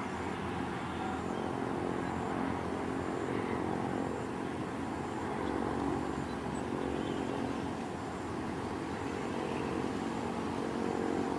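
Steady drone of distant motor engines, a hum of several pitches over a noisy background that swells slightly in the second half.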